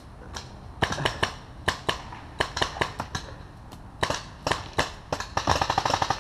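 Paintball markers firing in a game: scattered single pops and short strings, then a rapid string of shots from about five seconds in.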